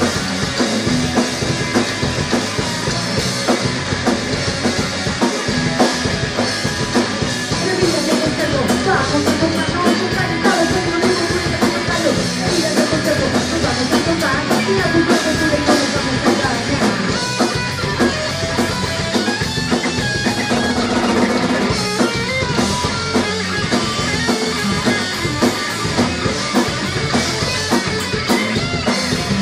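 Punk rock band playing live: electric guitar, bass guitar and fast drumming on a Tama drum kit, with a woman singing into the microphone through the middle.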